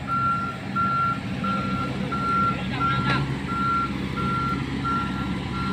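Komatsu hydraulic excavator's travel alarm beeping, a single steady-pitched beep repeating about every three-quarters of a second, over the steady drone of its diesel engine.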